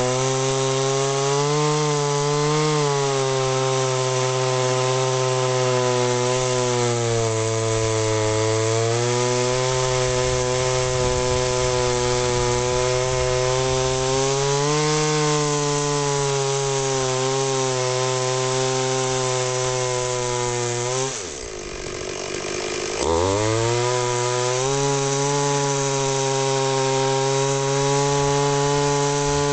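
Two-stroke chainsaw on a mini mill ripping lengthwise through a log, running at high speed under load, its pitch wavering slightly as the cut loads it. About two-thirds of the way through, the engine note drops steeply and quietens for a couple of seconds, then climbs back to full speed as the cut continues.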